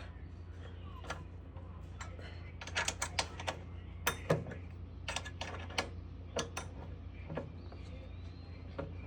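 Irregular light clicks and taps of hand tools on a bolt being tightened, with a quick run of them about three seconds in and a louder knock about four seconds in, over a low steady hum.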